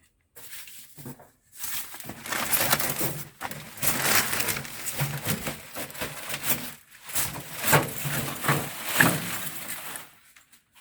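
Washing machine packaging being pulled and handled: irregular crackly rustling and scraping in bursts for most of the stretch.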